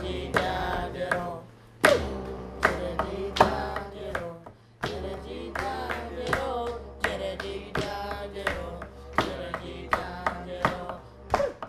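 Music performed by students: voices singing over a low drone, with sharp percussive strikes keeping a steady beat and short breaks between phrases.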